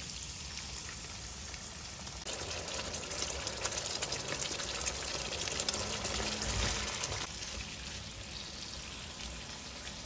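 Sizzling and crackling of sauce and vegetables in a hot frying pan as sweet and sour sauce is poured over stir-fried peppers and onions. The sizzle grows louder about two seconds in and eases again about seven seconds in.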